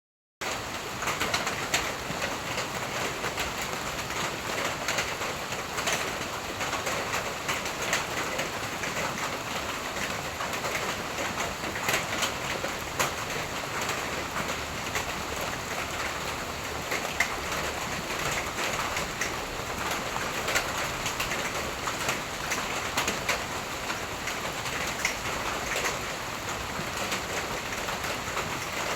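Steady rain falling, with many individual drops tapping irregularly over the constant patter.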